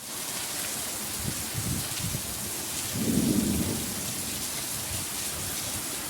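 Heavy rain falling steadily in a thunderstorm, with low rumbles of thunder, the strongest about three seconds in.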